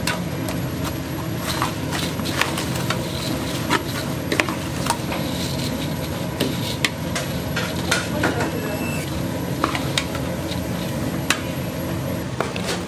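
Kitchen work clatter: scattered sharp clicks and knocks of utensils and containers, irregular and about one every second, over a steady low hum.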